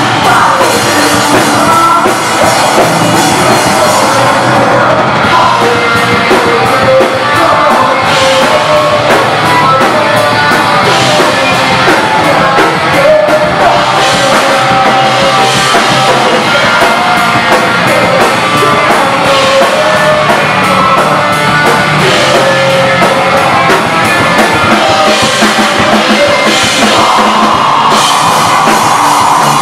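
Live rock band playing loud: drum kit and electric guitar under a vocalist singing and yelling into a microphone.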